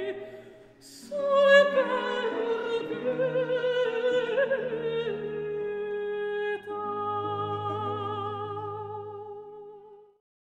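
Classical background music: a solo operatic voice singing held notes with wide vibrato over low sustained accompaniment, dipping briefly about a second in, then fading out and stopping near the end.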